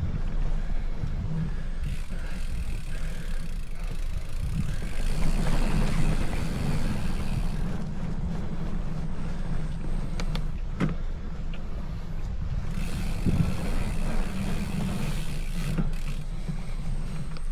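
Wind buffeting the microphone of a bicycle rider's camera on an uphill ride: a fluctuating low rumble with a haze of noise above it, and a few sharp clicks about two-thirds of the way through.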